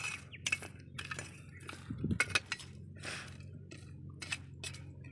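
Steel ladle clinking and scraping against a steel plate as pieces of fried mango pickle are served onto it, in a string of irregular clinks.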